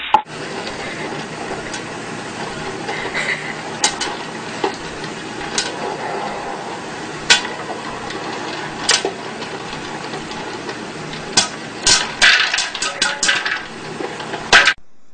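Scattered light knocks and clatters over a steady hiss, with a quick run of them near the end.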